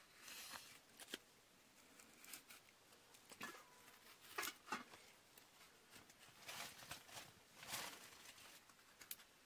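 Knife blade shaving thin curls down a wooden stick to make a feather stick: faint, short scraping strokes, roughly one a second and irregular.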